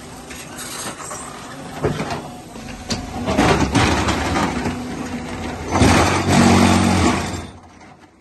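Tile-making machinery running with a steady motor hum, broken by two louder spells of machine noise, the second cutting off sharply near the end.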